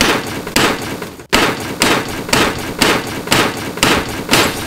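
Malleable iron head hammer tapping the countershaft down into a Muncie 4-speed transmission's aluminium case, a steady series of sharp metal blows about two a second with a short pause about a second in.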